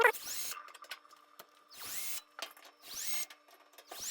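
Handheld power drill spinning in about four short bursts, each rising in pitch as the motor spins up, while working screws on a clothes dryer.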